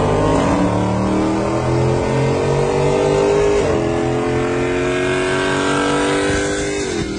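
Dodge Scat Pack's 392 (6.4 L) HEMI V8 at full-throttle acceleration, heard from inside the cabin: the engine note climbs steadily, drops with an upshift about three and a half seconds in, climbs again, and shifts once more near the end.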